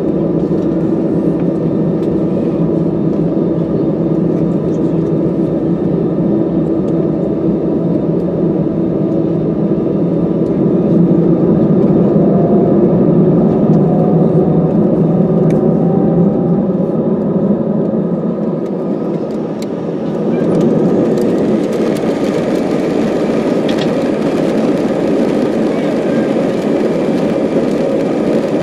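Airliner jet engines heard inside the cabin: a steady hum with engine tones while the aircraft holds on the runway, then about twenty seconds in the sound swells with a rising hiss as the engines spool up for the take-off roll.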